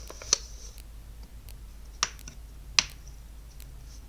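Three sharp plastic clicks as toy packaging and parts are handled, over a quiet background.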